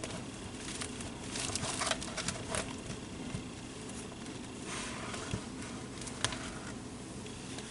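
A 6-inch plastic action figure being handled and set on its feet, with scattered light clicks and soft rustles of plastic and fingers.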